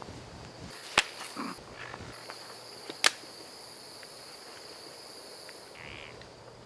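Two sharp smacks of hand strikes in a fight, one about a second in and one about three seconds in, over a steady faint chirring of insects in a grassy field.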